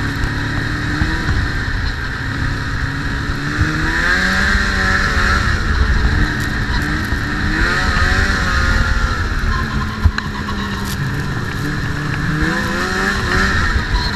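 Snowmobile engine running and revving, its pitch rising and falling several times, with a single sharp knock about ten seconds in.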